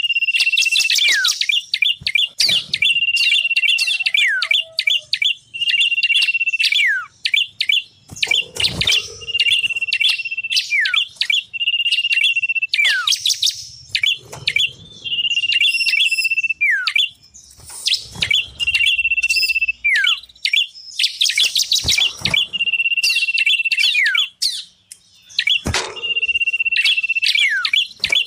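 Small songbirds calling, played as a bird lure: a held high whistle repeated about every two seconds, each ending in a few quick falling notes, over fast, sharp chattering. The lure mixes cipoh (common iora), ciblek (bar-winged prinia) and prenjak songs.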